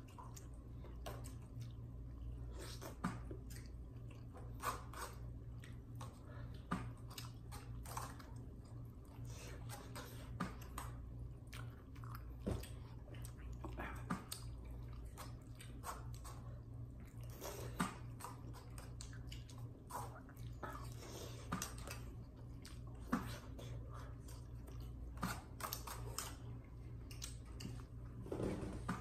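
A person eating chicken tinola close to the microphone: chewing and biting, with many short, irregular clicks and small knocks, over a steady low hum.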